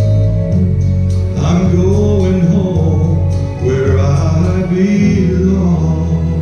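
Worship song playing: a voice sings over held instrumental chords, coming in about a second and a half in and going on in phrases.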